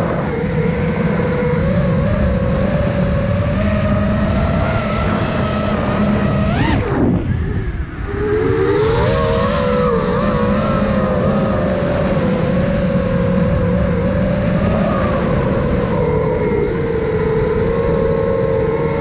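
Five-inch FPV quadcopter's brushless motors and propellers whining, the pitch wavering with the throttle. About six and a half seconds in the whine sweeps sharply up, then drops away as the throttle is cut, and picks up again a second or so later.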